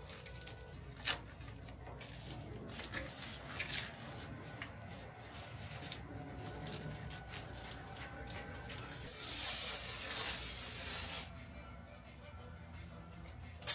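A hiss of spray lasting about two seconds, starting about nine seconds in, over quiet background music, with scattered light clicks and taps.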